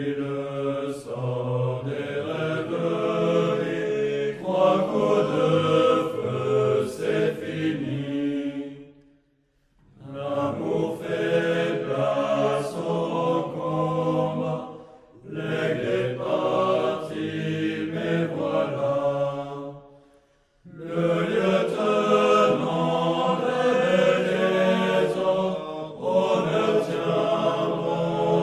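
Music of low chanting voices in long held phrases, breaking off briefly three times, about 9, 15 and 20 seconds in.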